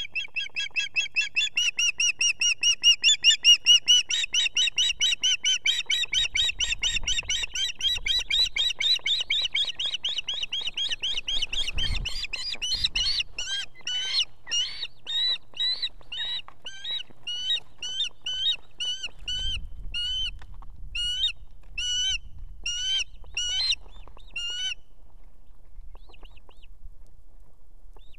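Osprey calling at the nest with food-solicitation calls to its mate: a fast, unbroken run of high, piping chirps that changes about halfway into separate chirps, roughly two a second, and stops a few seconds before the end. A low thump comes near the middle, as an adult lands on the nest.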